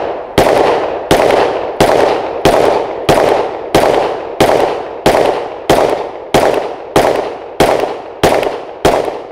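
Sig Sauer M17 9mm pistol fired in a steady string, about fourteen shots roughly two-thirds of a second apart, each followed by a short echo. The shots stop shortly before the end.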